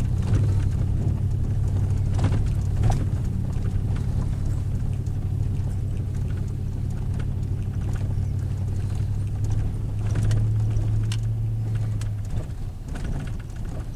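Vehicle driving a rough dirt road: a steady low engine and road drone, with scattered knocks and rattles from bumps. The drone eases off near the end.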